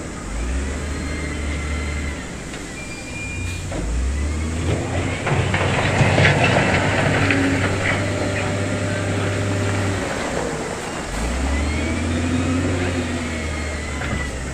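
Heavy diesel construction machinery running, a wheel loader and dump trucks working stone, with a steady low engine drone. About a third of the way in it grows louder with a noisy rattling stretch lasting a few seconds, then settles back.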